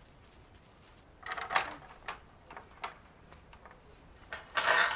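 Small metal pieces clinking and jangling in two short bursts, about a second in and again, louder, near the end.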